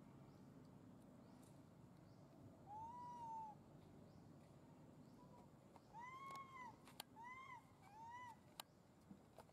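Macaque coo calls: four short, clear, arching calls that rise and fall in pitch, one about three seconds in and three close together later on. A few sharp clicks come near the end.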